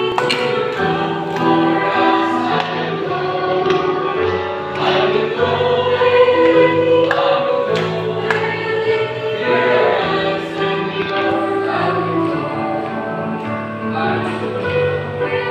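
Mixed youth choir of young women and men singing a Christian song together, holding long notes that move in steps.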